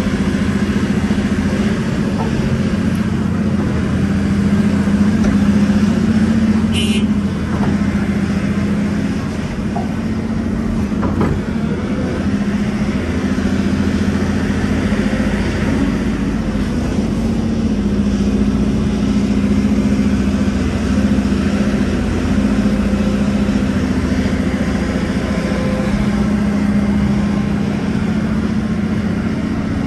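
Volvo EC700 excavator's diesel engine and hydraulics running under load, heard from inside the cab as it digs and swings. The engine note swells and eases with the work, with one brief high-pitched squeal about seven seconds in.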